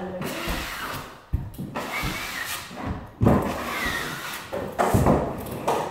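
A drywall nail spotter (a 6-inch box) is pulled in strokes across the drywall, scraping joint compound over the nail and screw heads. It makes uneven scrapes and knocks, a few sharper ones standing out.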